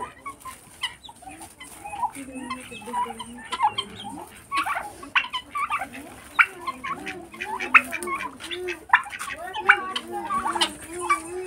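A flock of domestic turkeys and chickens calling as they forage: many short, sharp clucks and chirps, with a run of low, evenly repeated arched notes in the second half.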